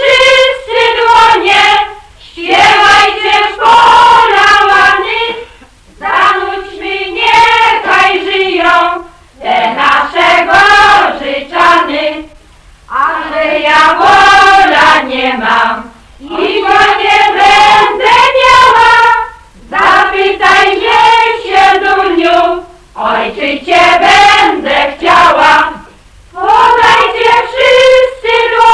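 A group of women singing a Polish folk song together in short phrases of about two seconds, with brief breaks between them.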